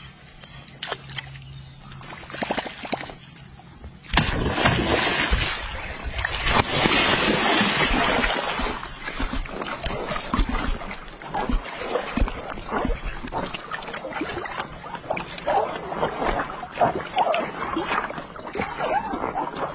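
A big hooked catfish thrashing at the surface while being played on rod and line: heavy splashing and sloshing water that starts suddenly about four seconds in and keeps coming in waves.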